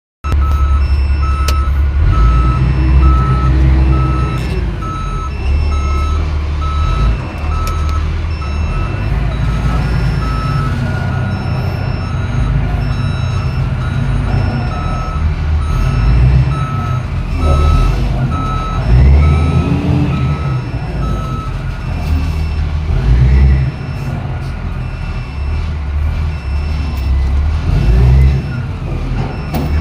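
A heavy vehicle's reversing alarm beeping at an even pace, about once a second, and stopping about two-thirds of the way through, over a diesel engine's low rumble that rises and falls as it works.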